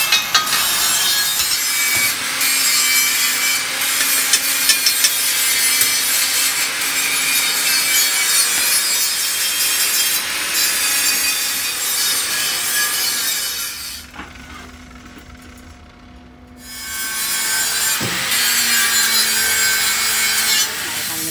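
Electric arc welding on a steel wheel-rim band: the arc gives a loud, steady crackle and sizzle. It breaks off for about two seconds a little past the middle, then starts again.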